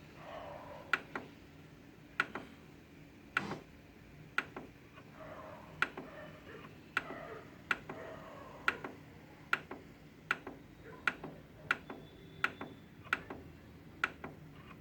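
A run of short sharp clicks, many in quick pairs, about one to two a second at a slightly irregular pace.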